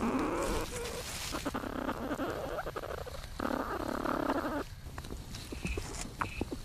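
Platypuses in their nesting chamber: two drawn-out, rough grunting calls of about a second each, one at the start and one about three and a half seconds in, with scratching and rustling of nest material in between.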